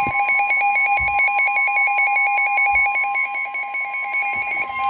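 NOAA Weather Radio sounding its steady warning alert tone, with a rapidly pulsing electronic alarm beeping alongside; the tones signal that a severe thunderstorm warning broadcast is about to follow, and they stop just before the end.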